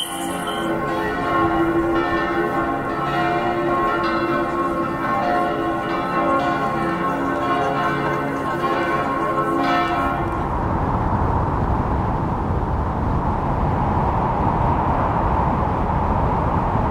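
Church bells pealing, many overlapping struck tones ringing and fading, for about ten seconds. Then they give way to a steady rushing noise.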